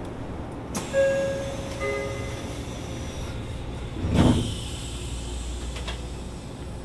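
Two-note door chime inside a Shin-Keisei N800-series train standing at a station, followed about four seconds in by the loud thud of the sliding doors. The carriage's air-conditioning hums underneath.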